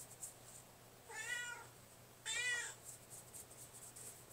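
A cat meowing twice, two short calls with the second one louder, each rising then falling in pitch.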